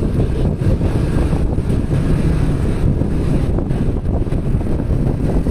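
Wind buffeting the microphone of a moving vehicle, a steady low rumble with road and engine noise underneath.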